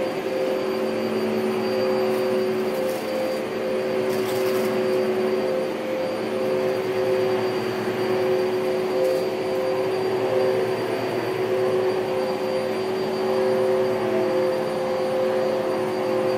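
Upright vacuum cleaner running steadily while being pushed over carpet: a constant motor whine over an even rushing noise, its tones shifting slightly in pitch as the load changes.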